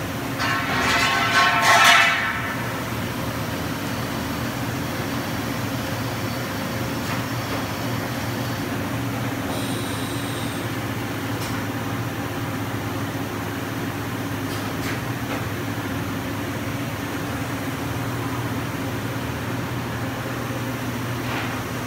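Steady low machinery hum of a machine shop. A brief shrill, pitched squeal lasts about two seconds near the start.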